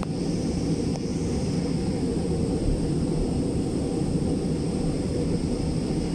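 Steady rumble of an MRT Line 3 light-rail train heard from inside the passenger car as it runs along a station platform, with a steady high whine above it.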